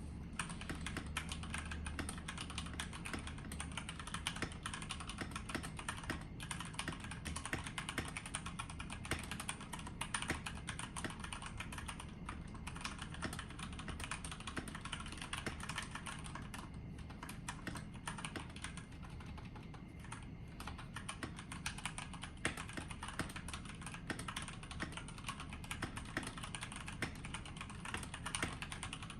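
Steady fast typing on a stock GK96S mechanical keyboard with Gateron MX Brown tactile switches and ABS keycaps: a dense run of key clicks with a few short pauses.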